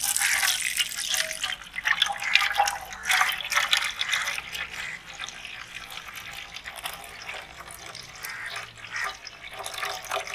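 Pineapple juice being poured from an aluminium pot through a plastic mesh strainer into a steel vessel, splashing and trickling. The pour is loudest for the first few seconds, then settles into a thinner trickle.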